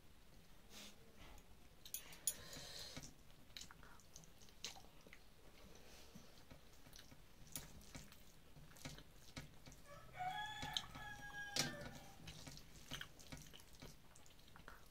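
Eating sounds close up: chewing, lip smacks and fingers mixing rice on a plate, heard as scattered small clicks and wet noises. About ten seconds in, a rooster crows once, for about a second and a half.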